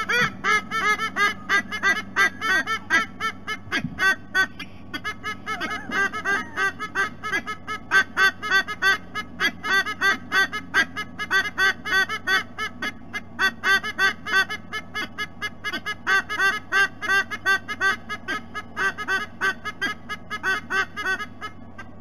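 A pair of white-bellied sea-eagles duetting: a long, unbroken run of loud, rapid honking calls, several a second, ending abruptly.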